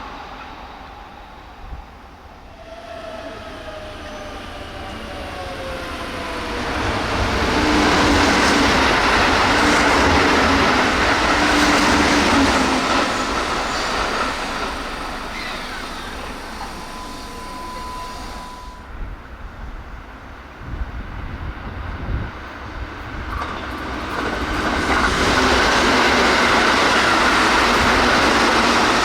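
Two Keihan commuter trains passing through a station at about 105–110 km/h. First a 13000 series semi-express, with a falling whine as it nears and a loud rushing pass over the first half. Then, after a cut, a 1000 series semi-express builds to a second loud pass near the end.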